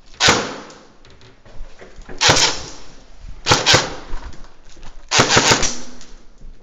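Short bursts of airsoft replica gunfire echoing through an empty concrete building: a single report about a quarter-second in, another near two seconds in, a quick double a second later, and a rapid string of shots a little past five seconds.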